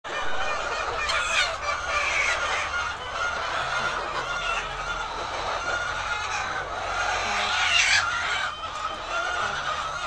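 A large flock of laying hens clucking and calling all at once, a continuous dense din of overlapping calls. A few louder calls stand out about a second in and again near the end.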